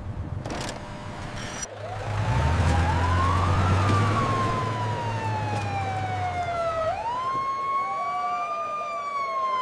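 Siren sound effect wailing: the pitch rises, falls slowly, then sweeps up again near the end, with a low engine rumble under it for the first part.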